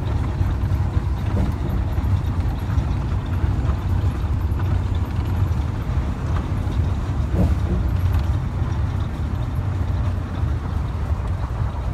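Steady low road and engine rumble of a moving vehicle, heard from inside the cabin.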